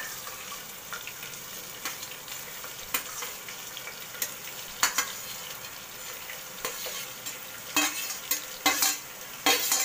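Chopped onions sizzling as they drop into hot oil and whole spices in a pressure cooker, while a steel ladle scrapes and clinks against a steel plate, pushing them in. The clinks come every second or two, bunching together near the end.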